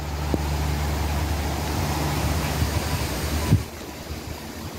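Gusty wind rushing through trees and across the microphone, over a steady low hum. About three and a half seconds in there is a brief bump, and after it the wind noise drops off noticeably.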